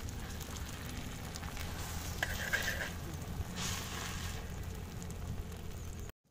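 Egg omelette sizzling in oil on a flat iron pan over a wood fire, with a metal spatula scraping the pan now and then as the omelette is cut and lifted. The sound cuts off suddenly near the end.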